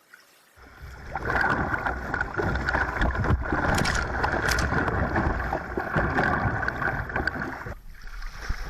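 Kayak moving on the river: rushing water with scattered sharp splashes. It starts abruptly after a moment of silence and drops out briefly near the end.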